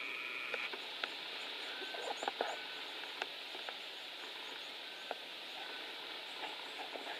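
Outdoor bush ambience: a steady high hiss with faint, short, high chirps repeating throughout and a few scattered clicks and light rustles.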